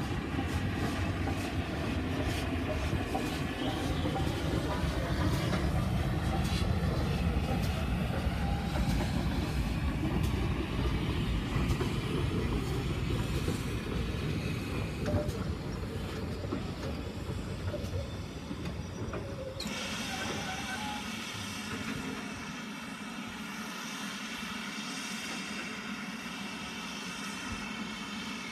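GWR Manor-class (78xx) steam locomotive hauling a train of coaches past: a low rumble of the engine and wheels on the track that grows louder as it approaches, then fades away in the second half.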